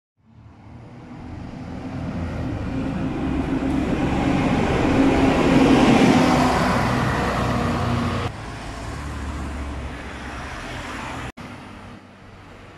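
A city bus passing close by on a street, its engine and tyres growing louder to a peak about six seconds in and then fading. Lighter car traffic follows.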